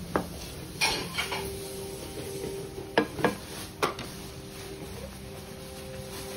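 Spatula stirring and knocking against a pan of simmering coconut-milk gravy: a scrape about a second in, then three sharp knocks between three and four seconds, over the low bubbling of the gravy.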